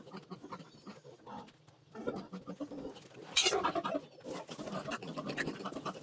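Piglets grunting, with a loud squeal about three and a half seconds in as one is picked up and put into a wire carrying basket.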